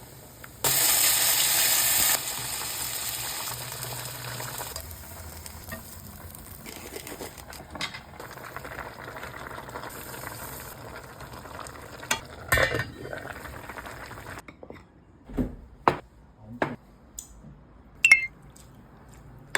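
Food sizzling in hot oil in a frying pan. The sizzle starts loud and suddenly about a second in, eases to a softer sizzle with a few knocks of stirring, and cuts off; near the end come several separate knocks and clinks of utensils on cookware.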